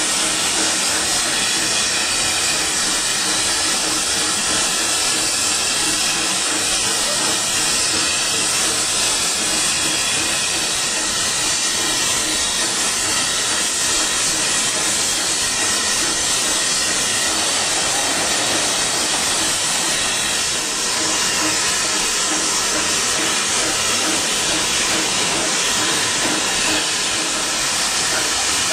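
Steady hiss of steam from a standing LMS Black Five 4-6-0 steam locomotive, 45407 'The Lancashire Fusilier', simmering at rest.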